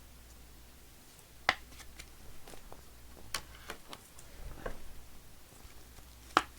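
Trading cards and their packaging handled on a tabletop: scattered light clicks and taps, with two sharper clicks about a second and a half in and near the end.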